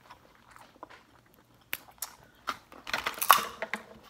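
Crab-leg shells cracked and snapped apart by hand, with chewing: a scatter of sharp cracks, busiest and loudest about three seconds in.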